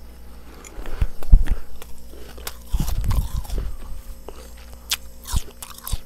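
Close-up crunching and chewing of mouthfuls of freezer frost (frozen ice crystals), in irregular bursts. The loudest come about a second in and around three seconds in, with a few sharp crunches near the end.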